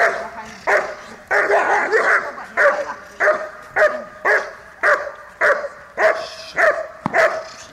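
German Shepherd barking hard and repeatedly, about two barks a second in a steady rhythm, while straining forward on a leash; the barking stops just before the end.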